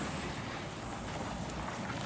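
Steady rushing noise of road traffic and lorries, with wind on the microphone.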